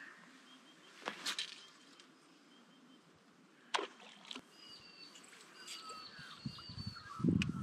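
Birds chirping over a quiet riverside background, with two short sharp noises about one and four seconds in and low rumbling near the end.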